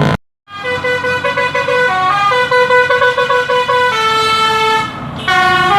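Indonesian 'telolet basuri' multi-tone bus horn playing a quick tune of short, stepping notes, with one longer, lower held note about four seconds in. A brief cut to silence comes just after the start.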